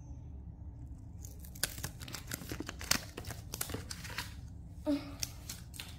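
Paper crinkling and crackling in a run of quick, sharp rustles as a folded paper packet is opened by hand, starting about a second and a half in.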